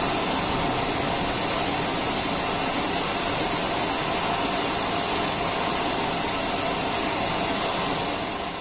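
Automatic facial-tissue production and packing line running: a steady machine hiss with a faint high whine, fading out near the end.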